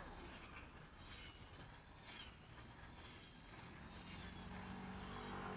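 Cordless battery string trimmer running faintly as it cuts grass, with a steady low hum growing in about four seconds in.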